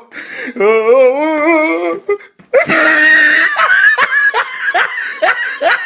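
A woman laughing: first a wavering, wobbling laugh, then a high breathy squeal about two and a half seconds in, then a run of short laugh bursts at about four a second.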